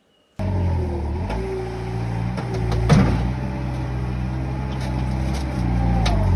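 Terex skid-steer loader's diesel engine running under load, cutting in abruptly about half a second in, its pitch dipping and recovering as it works. A loud clunk about three seconds in.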